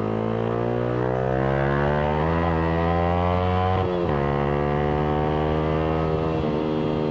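Yamaha R15 V3's 155 cc single-cylinder engine through an aftermarket Villan exhaust, pulling under acceleration with the revs climbing, then dropping sharply about four seconds in at an upshift before climbing again in the next gear.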